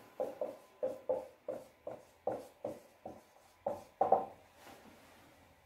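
Felt-tip marker squeaking on a whiteboard while a word is written, in about a dozen short strokes that stop about four and a half seconds in.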